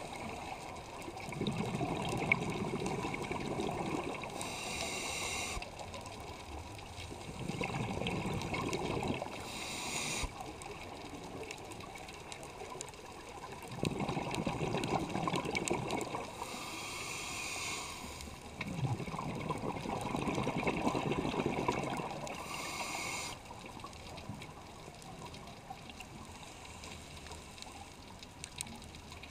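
Scuba breathing through a regulator, heard underwater: several rounds of exhaled bubbles gurgling, each followed by a short hiss of inhalation, about one breath every five or six seconds. The last few seconds are quieter.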